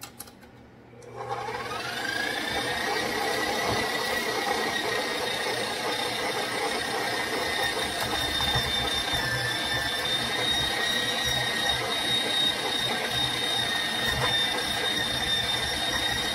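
Stand mixer driving a metal grain mill attachment, grinding dry mesquite pods into flour. The motor starts about a second in with a quick rising whine, then runs steadily with a gritty grinding as pod pieces are fed into the mill.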